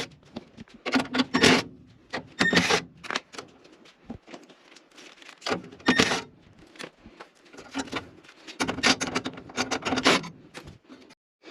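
Irregular metal scraping and rubbing with scattered clicks, from screws being backed out of a gas furnace's burner assembly and the assembly being worked loose.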